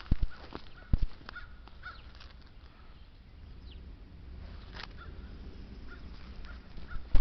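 Crow cawing a few times, faintly, with two sharp thumps in the first second over a steady low rumble.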